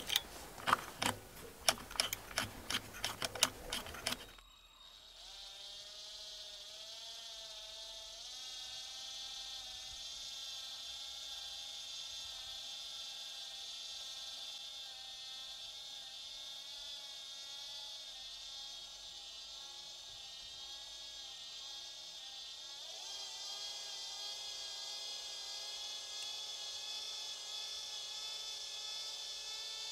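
A run of sharp clicks, then a cordless drill running slowly with a steady, slightly wavering whine as it winds 0.6 mm stainless steel wire around a rod into a coil spring. About three quarters of the way through it speeds up and gets louder.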